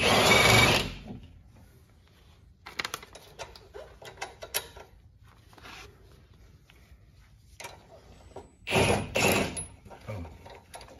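A handheld cordless power tool runs in two short bursts, one right at the start and one about nine seconds in, on the sway bar link hardware. Between the bursts come scattered light metal clinks of wrenches and parts.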